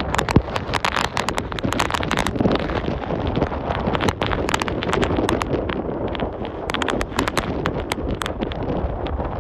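Strong, gusty wind buffeting the microphone: a loud rushing roar broken by rapid crackling pops and thumps all through.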